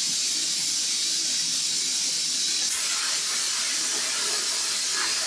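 Plasma cutter torch on an ArcDroid CNC robot hissing steadily with its compressed-air flow, then lighting its arc and cutting into metal plate; a brief sharper hiss about three seconds in marks the arc starting.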